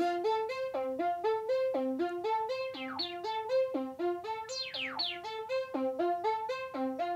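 Moog Model D software synthesizer playing a fast, repeating rising arpeggio through a small speaker, about once a second. Hand gestures sent over Bluetooth MIDI from a proximity sensor are changing its tone and delay, and a few quick, high falling sweeps cut through.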